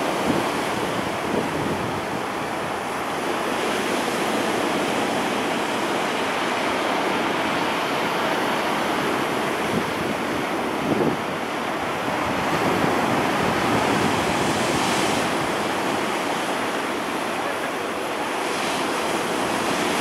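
Stormy sea surf breaking on a pebble beach: a continuous rush of foaming waves, swelling as a breaker comes in every few seconds.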